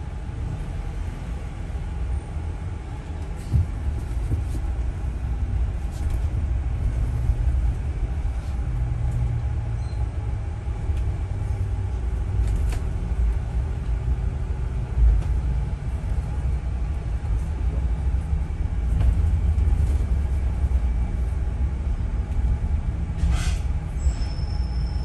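Double-decker bus running through city traffic, heard from inside the upper deck: a steady low rumble of engine and road noise, with a few short rattles and clicks from the bodywork.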